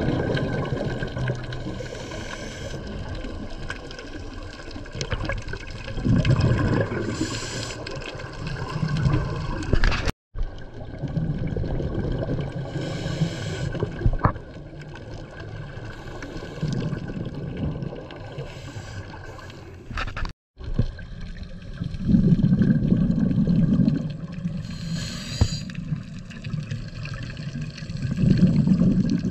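Scuba regulator breathing underwater: a short hiss of inhalation every few seconds, alternating with longer low rumbling stretches of exhaled bubbles. The sound drops out briefly twice.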